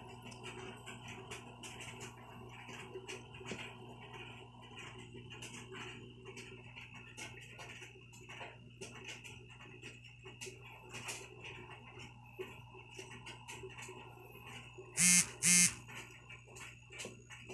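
Aquarium air bubbles rising and popping at the water surface, many small irregular pops over a steady low hum. Two short electronic beeps about fifteen seconds in are the loudest sounds.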